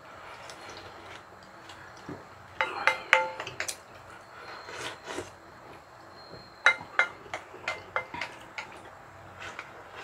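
Eating utensils clinking against dishes, in two short clusters of sharp clicks, some leaving a brief ringing tone.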